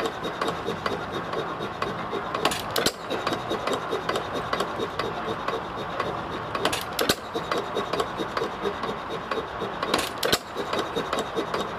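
Reeves Pulley Co. single-cylinder hit-and-miss stationary gas engine driving an ice cream maker by belt. It fires in short runs of two or three sharp bangs about every four seconds and coasts between them, with a quick, even clatter from the engine and the churn's gearing.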